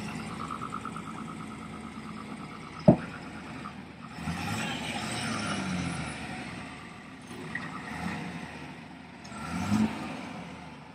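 Heavy diesel engine running, revving up in swells about four seconds in and again near the end, with a single sharp clank just before three seconds in.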